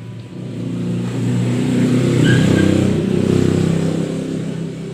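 Engine of a motor vehicle passing close by, growing louder to a peak about halfway and then fading.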